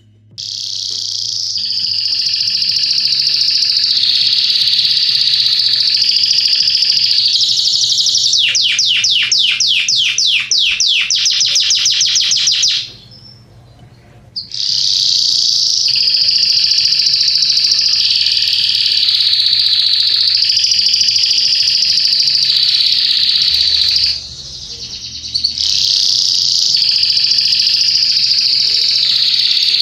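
Yellow Belgian canary singing: long, high, rolling trills, with a run of rapid repeated sweeping notes, about five a second, around a third of the way in. The song breaks off briefly twice.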